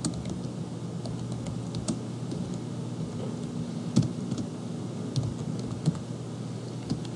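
Typing on a computer keyboard: irregular key clicks, a few of them louder, over a steady low hum.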